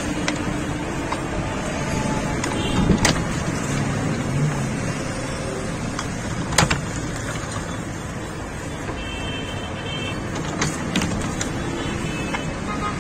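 Steady road traffic noise from passing cars, with a few sharp clicks or knocks, the loudest about three seconds and six and a half seconds in.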